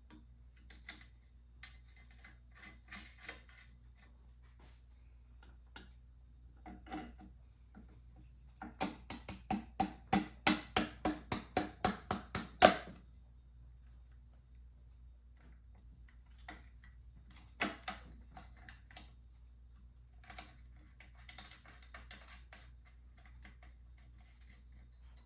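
Hand tools working on metal motorcycle parts: scattered clicks and knocks, then a quick even run of about fifteen sharp clicks, roughly four a second, for about four seconds in the middle.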